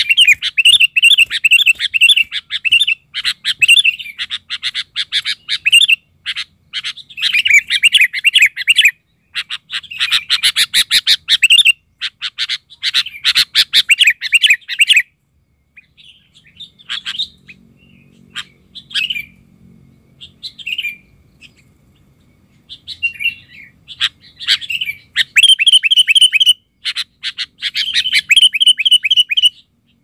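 Sooty-headed bulbul (kutilang) calling: fast runs of sharp, repeated chirps in bursts of a few seconds with short breaks, thinning to scattered single notes in the middle and picking up again near the end.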